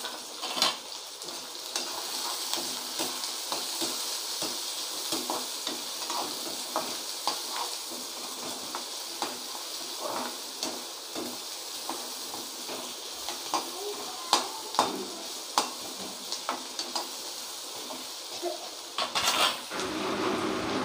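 Chopped onions sizzling in hot oil in a kadai, with a perforated metal ladle scraping and tapping against the pan as they are stirred. There is a louder burst of stirring near the end.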